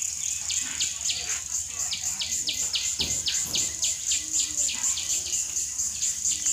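Insects chirring in a steady high drone, with a rapid even pulsing at about four to five beats a second. There is a short low thud about three seconds in.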